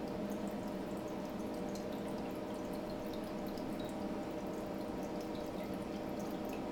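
Water dripping and trickling in a kitchen sink, with small irregular drip ticks over a steady low hum.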